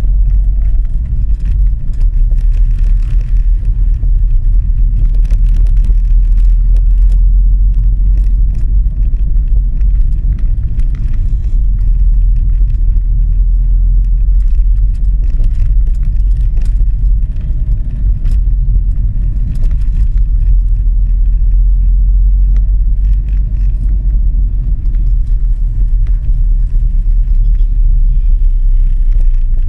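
Steady low rumble of a car's engine and tyres on the road, heard from inside the cabin while driving slowly in city traffic.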